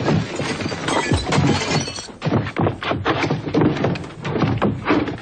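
Fistfight sound effects: a quick, irregular run of punches and heavy thuds, with crashes of things breaking.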